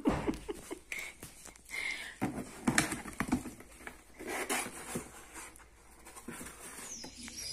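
Cardboard boxes and plastic-wrapped trays being handled and moved: irregular rustles, scrapes and knocks close to the microphone.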